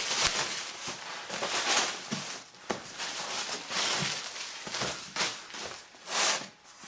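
Plastic bag rustling and a cardboard box being handled, with several knocks, the loudest near the end as the box is set down on a steel table.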